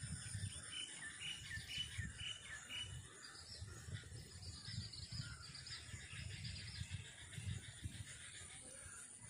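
Small birds chirping, with a short chirp repeated about twice a second over the first three seconds, over a steady high insect buzz and an uneven low rumble.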